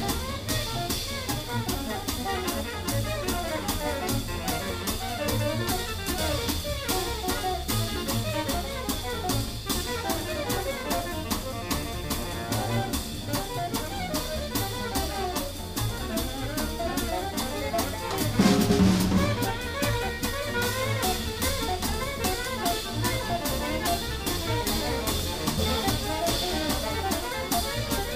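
Live small-group jazz: a drum kit keeping steady time on the ride cymbal over upright bass, with a louder drum accent about two-thirds of the way through.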